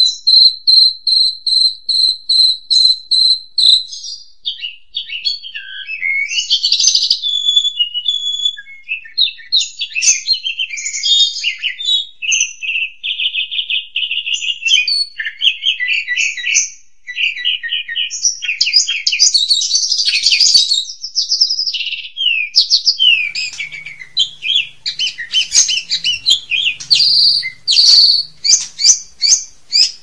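Asian pied starling (jalak suren) singing a long, varied song. It opens with a fast, even string of high whistled notes, then runs into jumbled chattering, warbling phrases and clicks, and ends in another burst of quick repeated notes.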